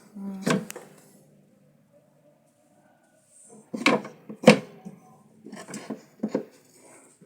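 Wooden beehive frames knocking and clattering as they are handled and set into a Langstroth hive box: a few sharp wooden knocks, the loudest two about four and four and a half seconds in, then lighter clicks.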